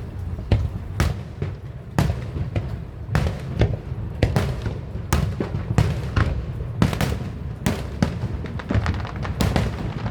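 Fireworks going off in quick, irregular succession: many sharp bangs, one or two a second, some louder than others, over a continuous low background din.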